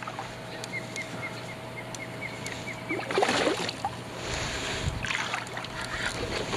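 Water splashing as a hooked smallmouth bass thrashes at the surface beside a kayak. The splashes come in short bursts, the loudest about three seconds in and another about five seconds in. Before the first burst there is a run of quick high chirps.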